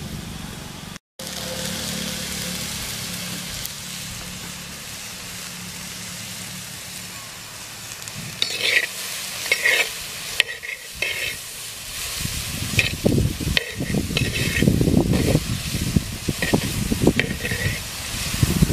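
Chopped bottle gourd sizzling in an earthen clay pot while a steel spoon stirs it. From about halfway the spoon clicks against the pot rim, then turns over the pieces with a dense scraping, stirring noise.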